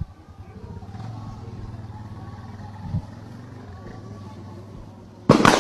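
A steady low motor hum, with a short knock about three seconds in and a loud, sharp bang near the end that rings on briefly.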